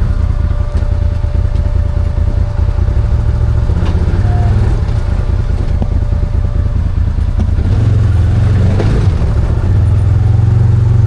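Arctic Cat Wildcat 1000 side-by-side's V-twin engine running as it drives along the trail, a steady low drone that grows louder about eight seconds in.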